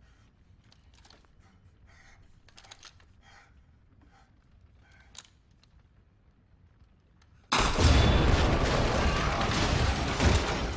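A hushed, tense stretch with faint scattered clicks and creaks, then about three-quarters of the way in a sudden loud burst of rapid rifle fire that keeps going.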